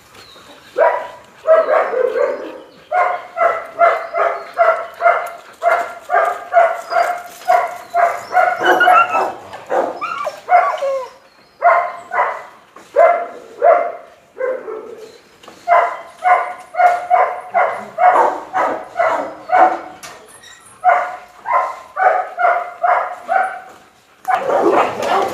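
A dog barking over and over in a steady series, about two to three barks a second, all at much the same pitch, with a few short pauses along the way.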